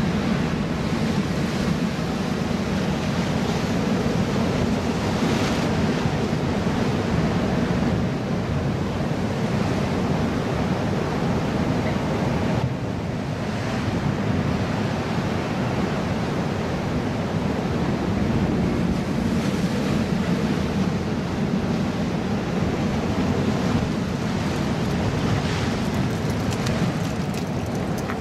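Ocean surf breaking and washing over a rock wall in a steady rush, with wind buffeting the microphone; the noise dips briefly about halfway through.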